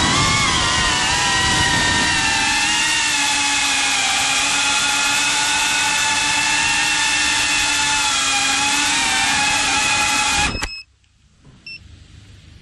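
Brushless motors of an iFlight Protek35 cinewhoop FPV drone whining steadily, with several pitches wavering slightly as the throttle shifts. The whine cuts off suddenly about ten and a half seconds in.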